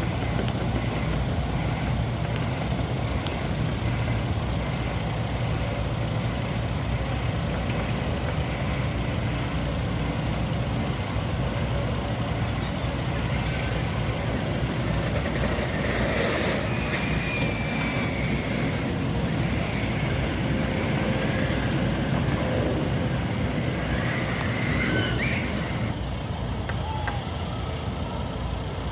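Steady vehicle noise: a heavy engine running with traffic-like rumble. Brief high squeals come about halfway through and again near the end.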